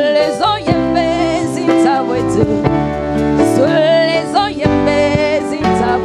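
A live band playing: sustained keyboard chords under a wavering, bending lead melody, with drums and regular cymbal hits.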